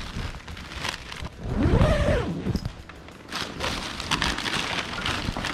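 Zipper on a fabric duffel-style carry bag being pulled open, with the bag's cloth and plastic packaging rustling as it is spread open. There is a louder, low, muffled handling noise about two seconds in.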